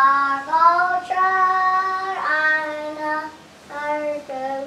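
A child singing a simple tune in long held notes that step up and down in pitch, with a short pause about three and a half seconds in.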